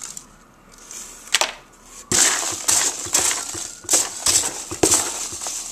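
Packaging crinkling and rustling as hands rummage through a shipping box. A single click comes about a second and a half in, and steady irregular crinkling follows from about two seconds in.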